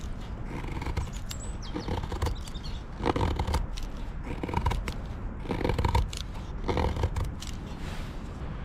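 Mora Garberg knife shaving thin curls off a softwood stick to make a feather stick: a rasping scrape with each stroke, about one a second, over a steady low rumble.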